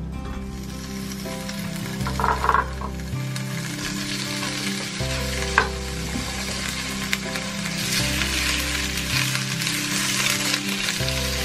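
Sliced flat fish cakes sizzling as they hit hot oil in a small square frying pan and are stir-fried with chopsticks. The sizzle grows louder in the last few seconds, with a single sharp tick about halfway through.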